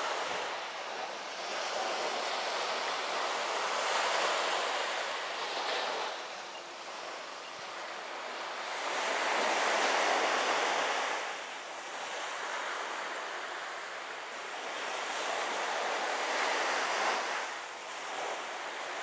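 Sea waves washing on the shore, a rushing noise that swells and fades about every six seconds.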